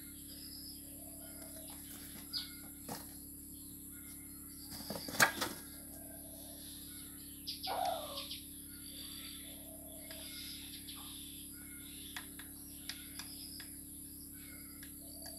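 Chickens feeding, with faint small-bird chirps repeating every second or two behind them. A cluster of sharp clicks comes about five seconds in, and a short falling cluck near eight seconds.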